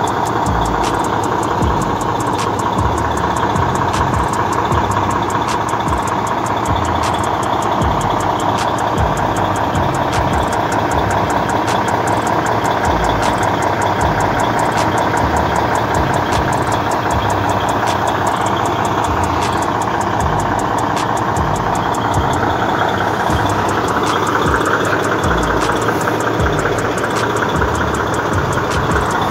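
International 9300 Eagle semi-truck's diesel engine idling steadily.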